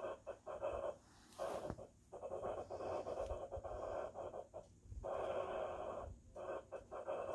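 Crayon scribbling on sketchbook paper: a dry scratchy rasp in strokes of about half a second to a second, with brief pauses between them.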